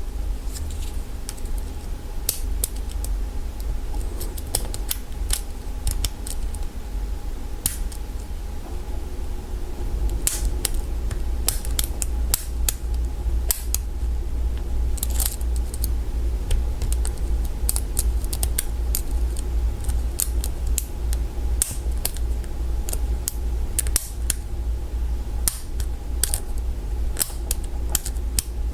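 Small irregular metallic clicks of a hook pick working the pins of a Kwikset mortise lock cylinder held under a tension wrench. A steady low rumble runs underneath and grows stronger about ten seconds in.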